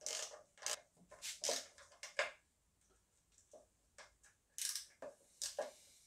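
Hand tools working on engine bolts: short, irregular clicks and metallic scrapes, pausing for about two seconds in the middle.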